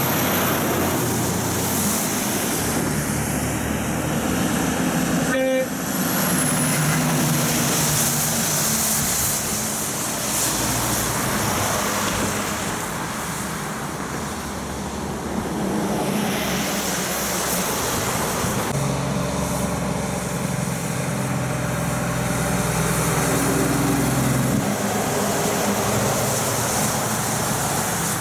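Heavy livestock trucks with trailers passing on a wet road: diesel engines running with a steady drone under the hiss of tyres on wet asphalt. An abrupt break about five and a half seconds in.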